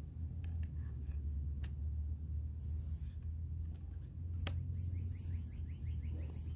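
Light metallic clicks of the aluminium magazine being fitted into a DAR Gen 3 .22 PCP air rifle's receiver, with one sharper click about four and a half seconds in.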